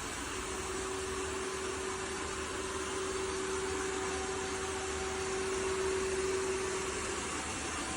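Ecovacs Deebot X9 Pro robot vacuum running, a steady whirring rush with a hum that holds one pitch.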